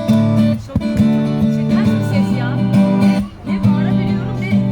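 Acoustic guitar strumming chords in an instrumental passage of a Turkish folk song, with a brief drop about three seconds in.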